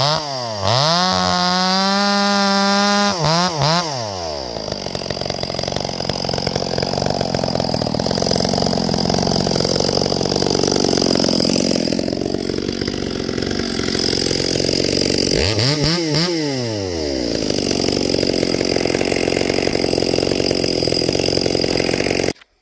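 Chainsaw revving up and held at full throttle, then cutting through wood under load for long stretches. Around the middle it eases off and revs up again before a second long cut, and the sound cuts off suddenly near the end.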